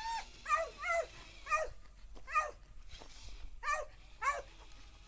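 A dog yipping: about seven short, high-pitched yips, each rising and falling in pitch, unevenly spaced.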